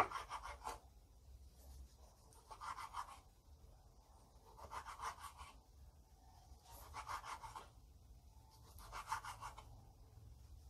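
Large kitchen knife sawing slices off raw beef on a wooden cutting board: five scratchy bursts about two seconds apart, each made of quick back-and-forth strokes, with a sharp knock of the blade on the board at the start. The knife is a little dull, so each slice needs several strokes.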